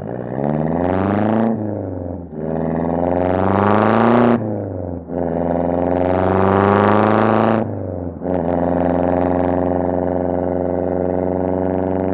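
Mazdaspeed 6's turbocharged 2.3-litre four-cylinder through a catless downpipe and a resonator-only single-exit exhaust, accelerating hard through the gears. The pitch climbs in three pulls, each cut by a gear change, then settles into a steady cruise.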